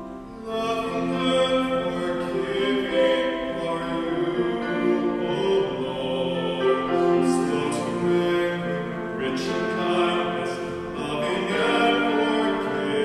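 Church music: voices singing a slow hymn over sustained instrumental chords.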